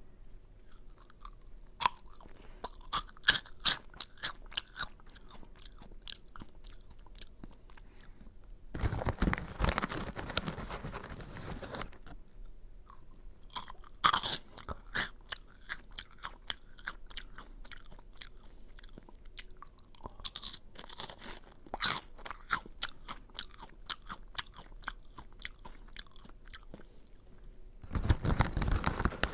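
Crunchy curry-flavoured Aji Curry snack being chewed close to the microphone, with quick runs of sharp, crisp crunches. Twice the crunching gives way to a longer, fuller burst of noise lasting a couple of seconds, about nine seconds in and near the end.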